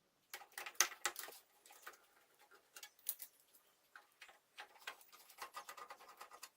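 Screwdriver undoing the mounting screws of a desktop computer's hard drive in its case: a run of small clicks and ticks. They come in a dense cluster just after the start, sparser in the middle, and thicken again near the end.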